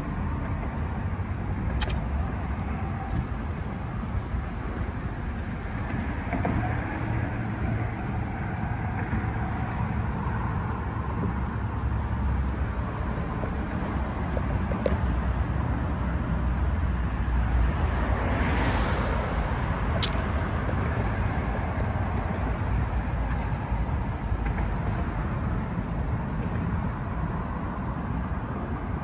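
Steady road traffic noise, with one vehicle passing close by about two-thirds of the way through.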